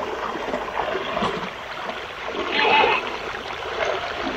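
Flowing water of a small shallow river, with splashing from a child wading upstream against the current.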